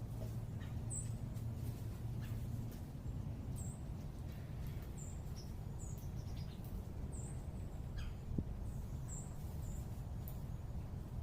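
A songbird giving short, high chip notes, one every second or so at irregular intervals, over a steady low urban rumble. A single sharp tick sounds about eight seconds in.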